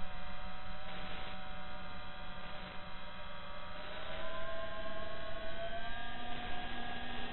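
FPV quadcopter's brushless motors whining, heard from on board. The pitch and loudness step up about four seconds in as the throttle is opened for low flight.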